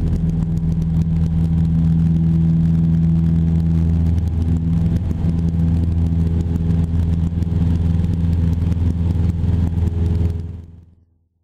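Cessna 172's piston engine and propeller running steadily, heard from just outside the cowling with wind rushing over the microphone. The sound fades out near the end.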